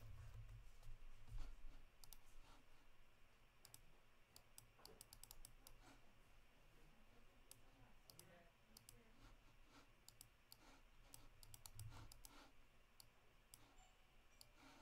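Faint, irregular clicking of a computer mouse and keyboard, some clicks in quick runs, over quiet room tone, with a soft low thump about a second and a half in.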